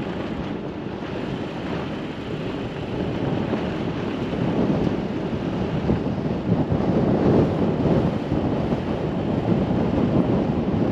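Truck driving along a rough gravel dirt road: a steady rumble of tyres and road noise mixed with wind buffeting the microphone, growing louder about four seconds in.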